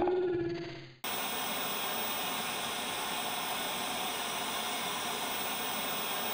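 Distorted metal music fades out. About a second in, steady white-noise static, like an untuned TV, cuts in suddenly and holds evenly.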